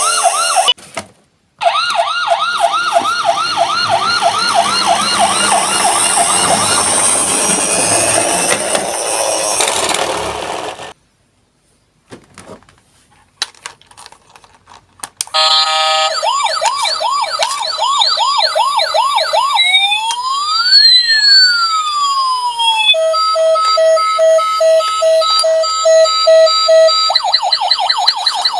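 Toy ambulance's electronic siren sounding in a fast repeating yelp, with a rushing noise underneath, then cutting out for about four seconds with only a few clicks. It starts again and cycles through its modes: fast yelp, slow rising and falling wails, a steady two-tone hi-lo, then the fast yelp again.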